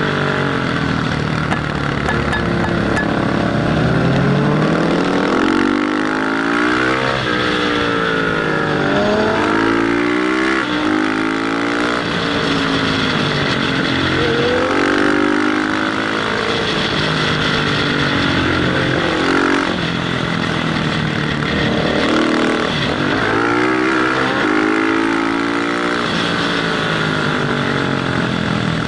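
Motorcycle engine revving up and dropping back again and again as it accelerates out of and slows into the bends, with wind rushing over the microphone.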